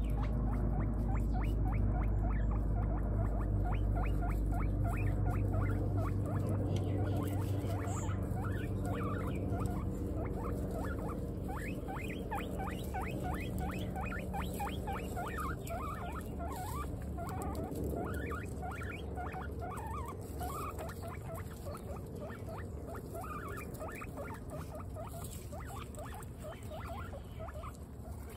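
Guinea pigs chewing dry pellets, a fast, continuous run of small crisp crunches.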